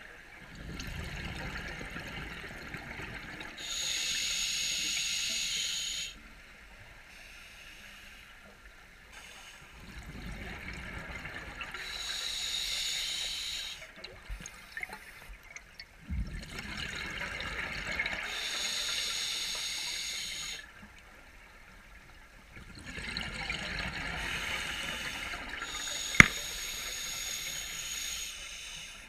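Scuba diver breathing through a regulator underwater: about four breaths, each a hissing inhalation and a low bubbling exhalation. One sharp click near the end.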